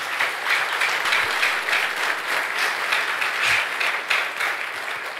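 Church congregation applauding, a dense steady patter of many hands clapping that tapers off near the end.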